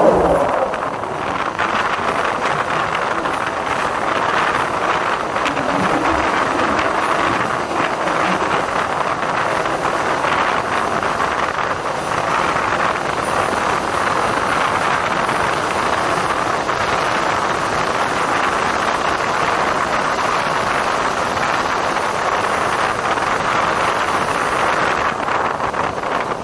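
Kamandaka passenger train running through the Notog tunnel: a steady, unbroken rush of wheel and air noise on the rails.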